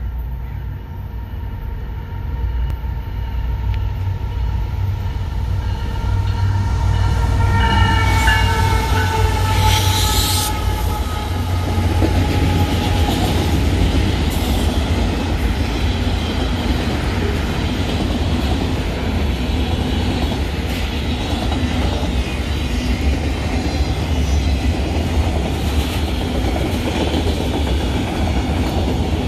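Mixed freight train hauled by diesel locomotives running past. A low engine rumble swells over the first several seconds, with a high whine that slides slightly lower and fades out about twelve seconds in. A few clanks follow, then the freight cars roll by with a steady rumble and rail clatter.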